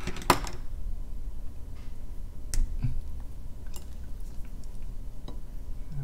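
A few small, sharp clicks and taps spread out, from handling and opening a new tube of paint and its cap, over a low steady hum.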